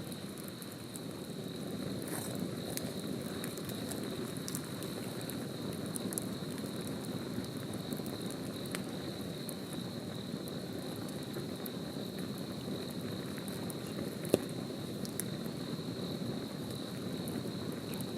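Wood campfire crackling, with scattered small pops and one sharp pop about fourteen seconds in, over a low steady rush. A steady high insect trill, like crickets, carries on throughout.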